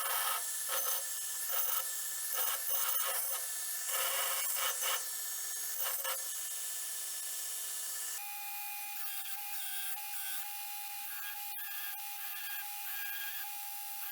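Grinder working a steel knife blade in short, repeated passes, a gritty hiss that starts and stops with each contact. About eight seconds in the sound changes abruptly to a steadier hum with a few held tones.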